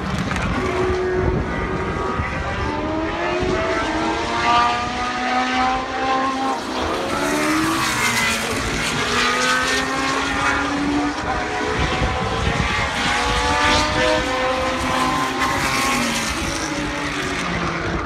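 Historic Formula 1 cars with Cosworth 3.0-litre V8 engines running on the circuit, the engines rising and falling in pitch as they accelerate and shift through the gears. More than one car is heard at a time.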